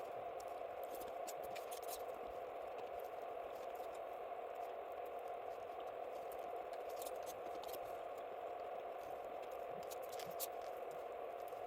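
Wood campfire crackling: scattered small sharp pops over a steady rushing hiss.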